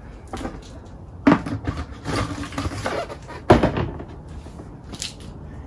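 A clear plastic tub being handled and set down on a plastic bucket lid: two sharp knocks, one about a second in and a louder one about three and a half seconds in, with a smaller click near the end.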